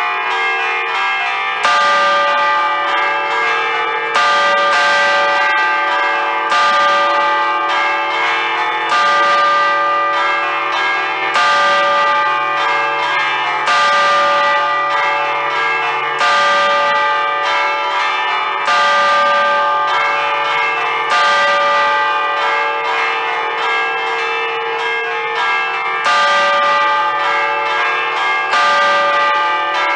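Five Ambrosian bronze church bells in D, cast by Giorgio Pruneri in 1875, chimed by hand at close range. The clappers are pulled on cords against the stationary bells in a festive allegrezza pattern. Loud overlapping strikes ring on into each other, with a strong accent about every two and a half seconds.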